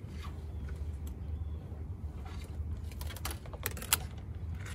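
Light clicks and rattles of loose wires and a small connector being handled against the truck's plastic door-sill trim, loudest in a short cluster about three to four seconds in, over a low steady hum.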